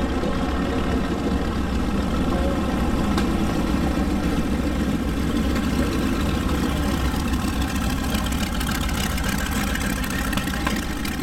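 A North American B-25 Mitchell bomber's two Wright R-2600 radial engines running at low taxi power as it rolls close past, a steady, even engine drone with a deep rumble.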